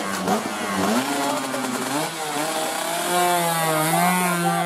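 Racing underbone motorcycle engine revving hard. Its pitch drops and climbs again twice, then holds high near the end.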